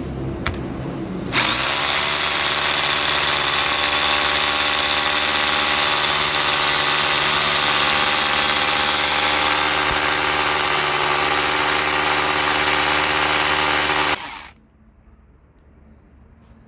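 Electric hammer drill running at a steady speed: it starts abruptly about a second in, runs evenly and switches off near the end.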